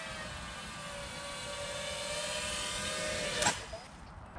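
FPV quadcopter's brushless motors whining steadily in low flight, then a sharp impact about three and a half seconds in as the drone crashes into the leaf-covered ground, after which the motors fall silent.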